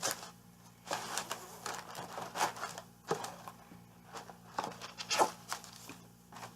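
Paper packaging of a beauty subscription box being handled and opened: irregular rustling and crinkling, with scattered light scrapes and taps.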